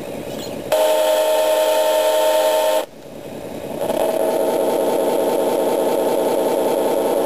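Sound unit of a garden-scale model diesel locomotive: a steady horn blast with several pitches together lasts about two seconds, starting a little under a second in. After a brief drop, the diesel engine sound builds up over about a second and keeps running steadily and loudly.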